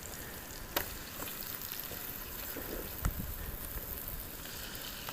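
Shoulder bacon frying in a pan: a steady sizzle, with a couple of light clicks about a second in and about three seconds in.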